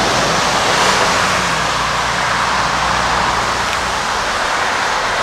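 Road traffic on a busy four-lane road: cars driving past with a steady rush of tyre and engine noise.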